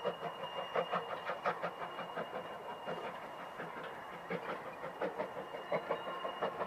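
Saddle-tank industrial steam locomotive moving slowly with a short train of wooden wagons: irregular clanking and clattering of wheels, couplings and buffers, several knocks a second, with a faint steady high whine over it.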